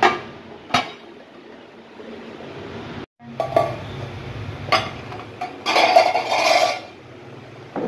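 An aluminium pot lid clanks twice as it is set on a pot. Then a large pot of water boils with a low steady hum under it, broken by clinks and a louder stretch of clatter about six seconds in.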